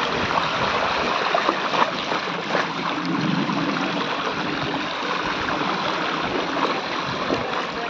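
Shallow floodwater sloshing and splashing: a steady rush of water with many small irregular splashes.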